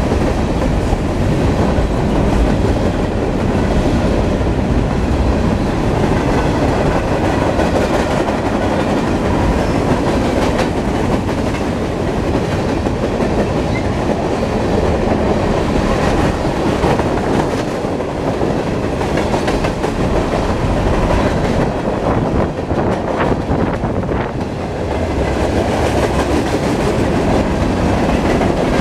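Freight train of covered hoppers and tank cars rolling past at close range: a loud, steady rumble and rattle of steel wheels on the rails, with scattered clicks.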